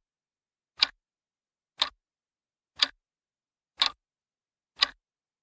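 Countdown-timer clock-tick sound effect: five sharp ticks, one a second, with silence between them.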